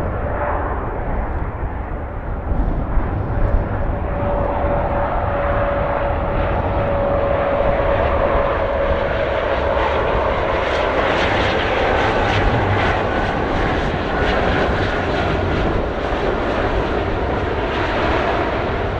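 Swiss Airbus A330-300's turbofan engines spooling up on the runway, a steady whine over jet noise, and growing louder and harsher from about ten seconds in as the aircraft rolls past on its takeoff run. Wind rumbles on the microphone underneath.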